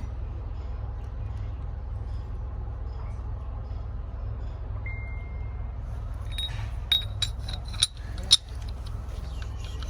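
A steady low hum, with a few sharp metallic clinks of metal parts knocking together late on, the last one the loudest.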